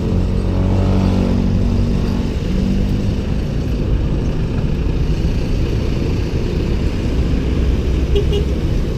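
Steady wind and road rumble on the microphone of a bicycle-mounted camera during a ride, with a motor vehicle's engine passing close by in the first couple of seconds.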